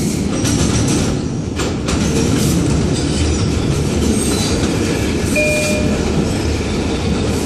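R142 subway car running at speed, a steady low rumble of wheels on rail with a few clacks in the first two seconds. A brief high tone sounds about five and a half seconds in.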